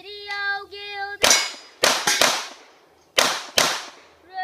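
Handgun fired five times at steel and paper targets: three quick shots, a short pause, then two more, each a sharp crack with a ringing tail. A steady pitched tone sounds for about a second before the first shot, and another starts near the end.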